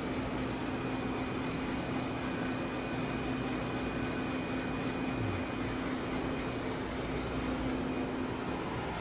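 Selmi chocolate tempering machine running in its tempering cycle, its refrigeration compressor and auger motor giving a steady hum with one constant tone.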